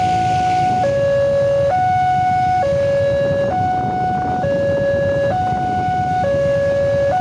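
Railway level-crossing alarm sounding its two-tone warning, a higher and a lower tone alternating steadily about once a second. Underneath is the low rumble of road traffic waiting at the crossing.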